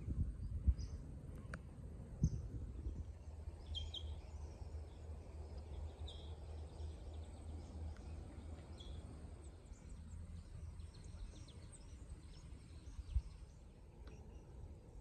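Steady low wind rumble on the microphone, with a few short, high bird chirps about four, six and nine seconds in, and a few sharp knocks near the start and about thirteen seconds in.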